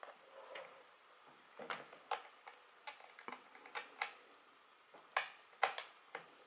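Irregular small metallic clicks and taps of a screwdriver working the bottom-cover screws out of a Pinebook Pro laptop. The tool ticks against the screw heads and the case, with a pair of sharper clicks just past five seconds in.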